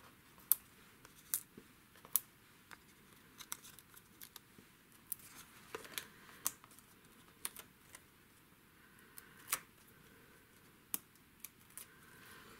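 Faint, scattered light clicks and ticks, about one every half second to a second, from small paper cut-outs and adhesive being handled and pressed on a craft mat.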